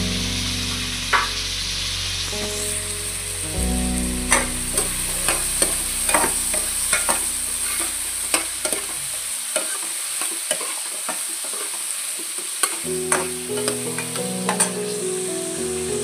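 Diced potatoes frying with a steady sizzle in a metal kadai, with a steel spoon scraping and clinking against the pan as they are stirred. The spoon's sharp clicks come thick and irregular from a few seconds in until near the end.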